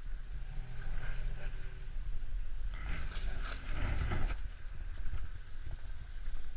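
Toyota 4Runner's engine running under load as the truck crawls over logs and rocks off-road. The rumble grows louder and noisier about three to four seconds in, then settles.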